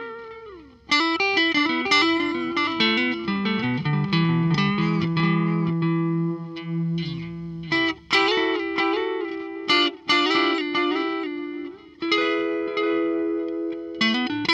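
Fender Telecaster on its neck pickup, played through a Fender Blues Junior valve amp with the Coldcraft EchoVerberator delay set to a long delay time in its tape mode. The notes are followed by repeats that carry a little tape-like warble. New phrases start about a second in, at about eight seconds and at about twelve seconds.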